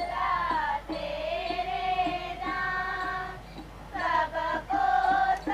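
Singing over music: voices holding long, slow notes, with a short break about three and a half seconds in.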